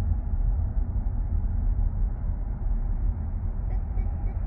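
A steady low rumble throughout, with a few faint, short higher sounds near the end.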